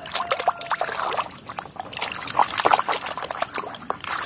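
Muddy water splashing and sloshing in a basin as a hand scrubs a small plastic toy truck in it, a rapid irregular run of splashes and trickles.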